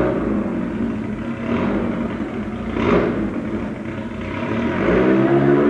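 Race car engine revving hard up a hill-climb course, its pitch rising and falling through the gears, with the engine note climbing again near the end.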